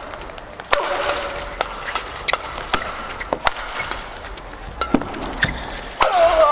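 Badminton rally: a quick, irregular exchange of sharp racket strikes on the shuttlecock, with short shoe squeaks on the court floor, the loudest around a second in and near the end.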